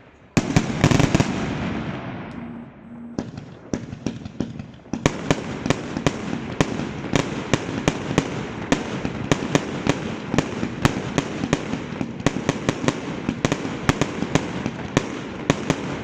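Fireworks going off: a loud bang about half a second in, then from about five seconds on a rapid run of sharp cracks, several a second.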